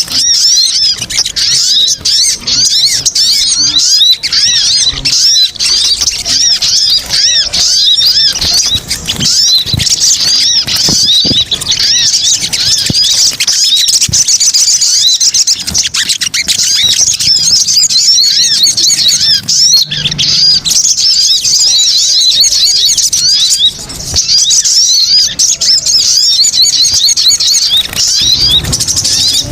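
Sogon (little spiderhunter) lure calls: a loud, unbroken stream of rapid, high chirps and chatter, several birds calling over each other.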